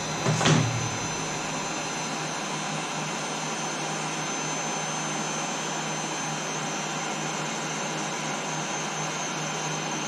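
Electric heat gun running steadily, a constant rush of air with a thin high whine, as it shrinks heat-shrink tubing over a wire. There is a brief louder surge about half a second in, just after it is switched on.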